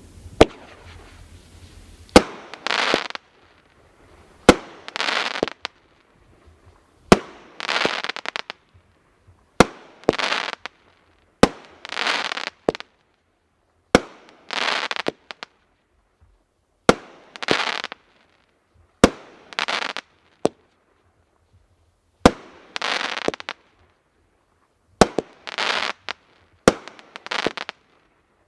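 Consumer firework cake (Cutting Edge Fireworks "Daggers") firing shot after shot. Every two to three seconds there is a sharp launch thump, followed about half a second later by a burst of crackling about a second long.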